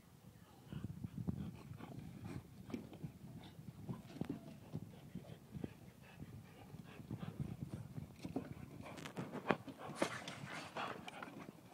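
French bulldogs playing on wooden decking: irregular clicks and scrabbling of claws and paws on the boards, with the dogs' snuffling and panting, loudest close up about nine to eleven seconds in.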